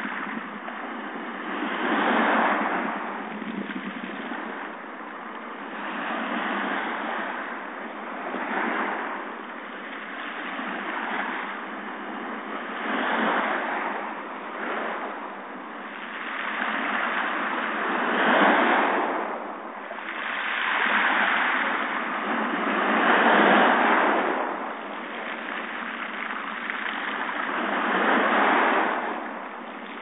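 Small ocean waves washing up and drawing back over a pebble beach, the pebbles rattling and knocking together in the moving water. The rush swells and fades every few seconds as each wave comes in.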